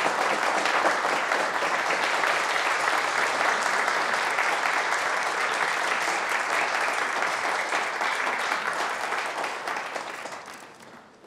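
A crowd of guests applauding, steady clapping from many hands that fades out over the last couple of seconds.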